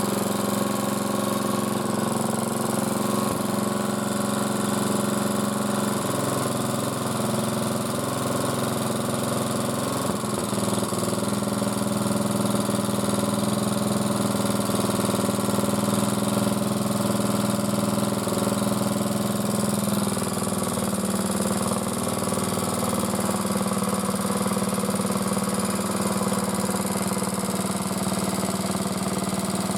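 MTD motor-cultivator's four-stroke engine running steadily at an even speed, its valve clearance freshly set to 0.15 mm, with the gearbox turning.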